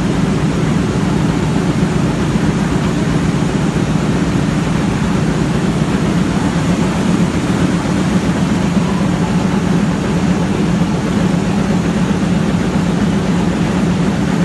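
Steady, loud drone of machinery running, with an even low hum that does not change.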